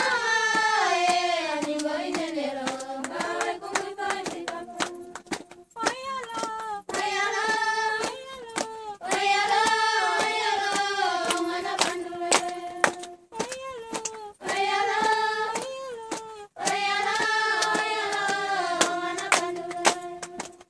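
Women's voices singing in long phrases with short breaks between them, with hand claps sounding through the song.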